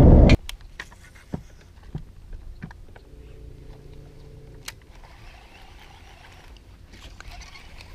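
A boat's outboard motor running, cut off abruptly within the first half second. Then quiet with scattered small clicks as a baitcasting reel is handled, and a faint steady hum in the middle.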